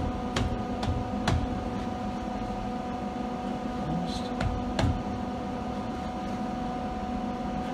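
Steady machine hum, with a few light clicks and knocks scattered through it.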